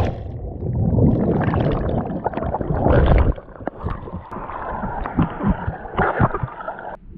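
Muffled underwater rush and rumble of churning bubbles, with the microphone submerged just after a person has jumped into the sea. A little over three seconds in the camera breaks the surface, and the sound turns to lighter splashing and water slapping around the camera as he swims.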